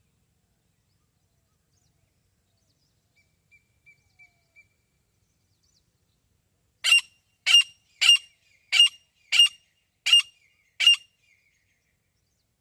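Female grey francolin calling: four faint short notes, then a run of seven loud, sharp, evenly repeated calls about two thirds of a second apart.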